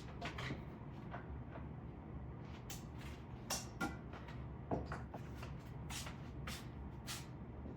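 Scattered light clicks and knocks of kitchen items being handled, about a dozen spread through, over a steady low hum.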